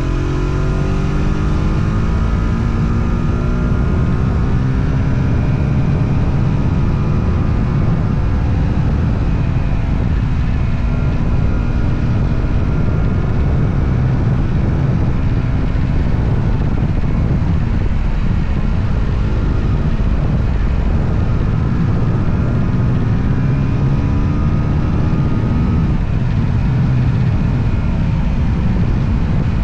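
Motorcycle engine running under way, its pitch rising and falling as the throttle opens and closes, with a sharp drop in pitch a little before the end.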